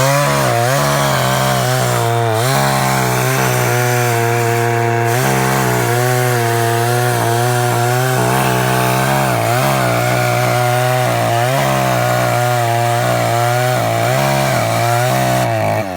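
Cheap Chinese-made two-stroke chainsaw at full throttle, cutting into a tree, its engine pitch wavering up and down as the chain bites into the wood. The revs climb at the start and drop away near the end.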